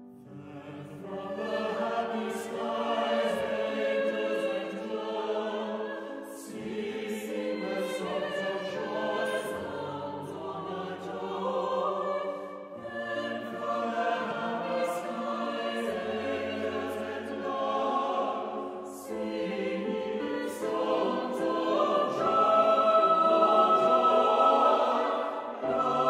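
Mixed choir singing held chords in long phrases, with short breaths between phrases and hissed 's' consonants. The singing swells loudest near the end.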